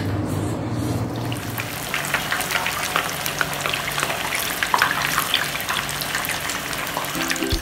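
Pork hocks (crispy pata) deep-frying in hot oil: steady sizzling, with many small crackles and pops setting in about a second in.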